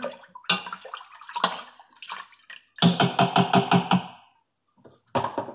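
A metal tablespoon stirring and scraping in milk in a stainless-steel Instant Pot inner pot, with scattered scrapes and clinks and then a quick run of about seven rhythmic scrapes in the middle, mixing in the yoghurt starter.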